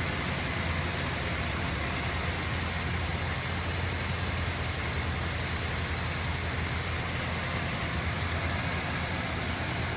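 1977 Chrysler New Yorker's V8 engine idling steadily, a low, even hum with no change in speed.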